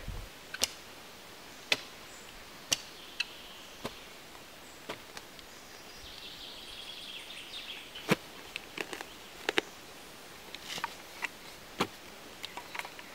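Small hand shovel jabbing and scraping into dry soil, sharp strikes roughly once a second, with a faint background of birds and insects.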